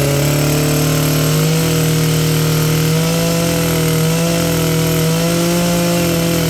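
Maruyama BIG M AC300RS 30cc brush cutter engine revved and held steady at high speed under the throttle, with a small rise in pitch about three seconds in.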